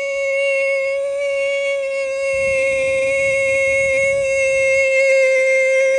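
Loud, steady single-pitched electronic alert tone with many overtones, held without a break: the attention signal of a mock Emergency Alert System broadcast.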